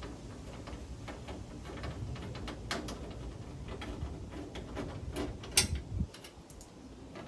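Scattered clicks and metal clinks of hand tools and parts as a car's radiator support cover is worked on, with a sharp clank about five and a half seconds in and a dull thud just after.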